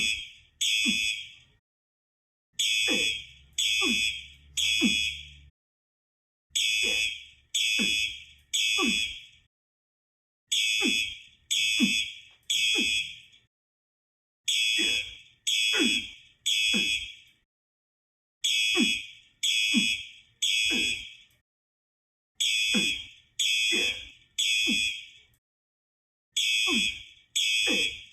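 Fire alarm beeping in the temporal-three pattern: three short high-pitched beeps, then a pause, repeating about every four seconds.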